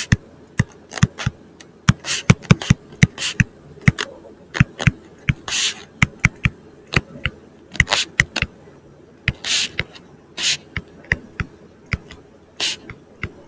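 Stylus writing on a tablet screen: an irregular run of sharp taps and clicks, several a second, mixed with short scratchy strokes as characters are written out.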